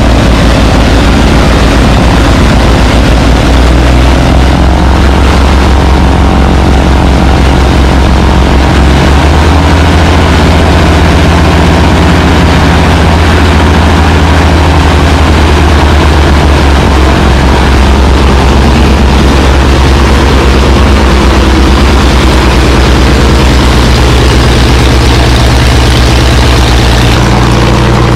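A Beechcraft Baron B55's six-cylinder Continental piston engine running steadily, close by and loud, with its propeller turning.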